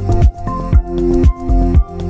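Background electronic music with a steady beat, about two kick-drum beats a second under sustained synth chords.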